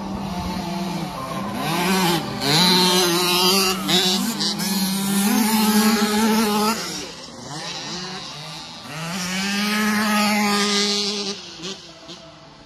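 Small two-stroke engines of 50cc kids' motocross bikes revving hard, the pitch rising and falling with throttle and gear changes. Loud through the first half, dipping for a moment, then rising again as a bike climbs the hill and fading near the end.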